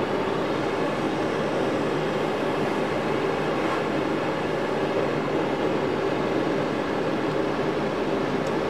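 Handheld gas torch burning with a steady hiss as it heats a distributor drive gear so the gear expands enough to slide onto the crankshaft.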